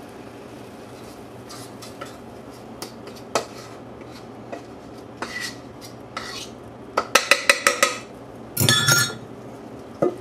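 A stainless steel mixing bowl being scraped out over a cast iron skillet as cornbread batter is emptied into it, with scattered light clinks. Near the end comes a quick run of about eight ringing metal taps, then a louder scrape.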